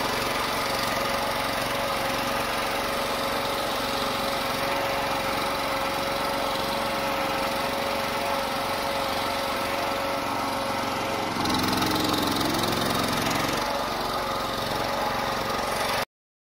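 Small engine of a compact mini loader running steadily. It grows louder for a couple of seconds about three quarters of the way through, then cuts off suddenly just before the end.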